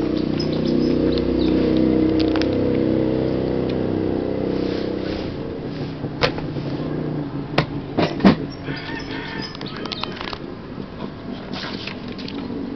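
A motor engine runs with a steady low hum, fading out about halfway through. Then come several sharp clicks and a brief higher call.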